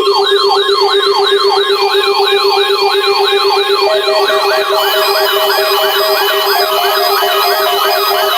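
Loud layered electronic alarm sirens starting abruptly: a fast repeating falling yelp, about three sweeps a second, over a steady tone. Pulsed beeping tones join about four seconds in.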